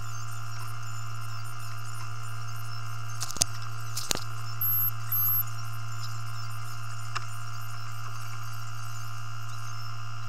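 Steady low hum of a JCB telehandler's engine heard from inside the cab, with a few fixed whining tones above it. Two sharp clicks come about halfway through, followed by two short high-pitched beeps.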